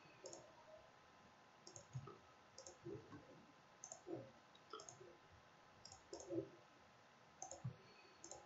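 Faint clicks of a computer mouse button, each a quick double tick, about eight of them spaced a second or so apart.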